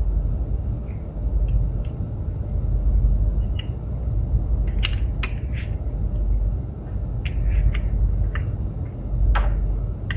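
Light, irregular clicks and taps of hands handling an Arduino board, breadboard and plastic jumper wires, over a steady low background rumble.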